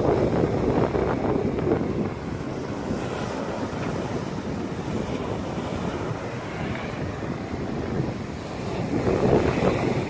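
Rough surf breaking on a sandy beach, mixed with wind buffeting the microphone. The noise swells louder near the start and again near the end.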